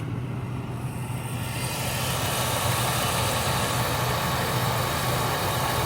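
Dodge Ram's 5.7 HEMI V8 idling steadily, its exhaust manifold refitted with new studs and gasket so the exhaust leak is sealed; a hiss grows louder about two seconds in.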